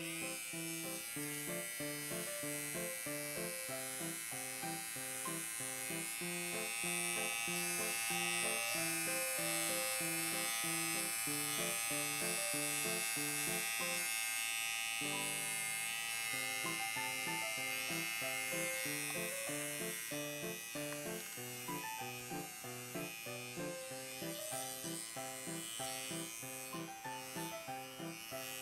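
Small battery-powered pet hair clipper buzzing steadily as it trims the overgrown fur between a cat's paw pads, with background music playing under it.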